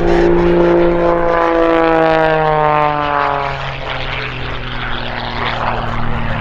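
Pitts aerobatic biplane's piston engine and propeller passing close at speed. Its drone drops steadily in pitch over the first three seconds or so as it goes by, then runs on at a lower, steady pitch as the plane pulls up.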